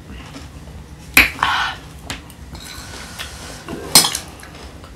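A spoon clinking and scraping against a plate of food: a sharp clink about a second in, followed by a short scrape, and another clink near the end.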